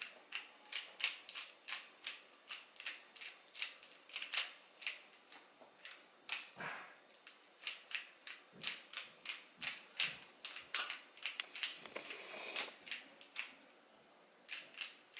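A Rubik's Cube being turned by hand: a quick, irregular run of plastic clicks and clacks, several a second, with a brief pause near the end.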